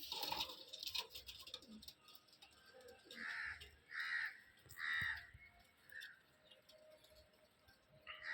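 A bird calling: three loud calls about a second apart near the middle, then a fainter fourth one.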